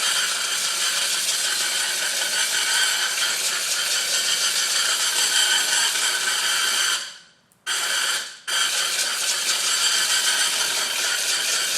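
Compressed air hissing from an air compressor's trigger blow-gun through a homemade pill-bottle-and-pen airsoft gun, in blasts: a long one that stops about seven seconds in, a brief one under a second, then another steady blast.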